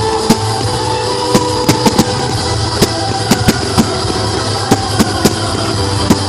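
Fireworks going off: sharp bangs and pops at irregular intervals, a few a second, over a steady low hum.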